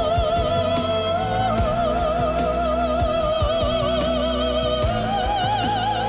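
Background pop music: a long held melody line with wide vibrato, stepping up in pitch twice, over steady bass and a regular drum beat.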